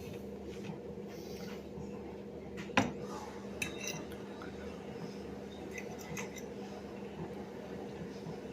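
Cutlery and crockery clinking during a meal: a sharp knock about three seconds in, then a few ringing clinks, over a steady low hum.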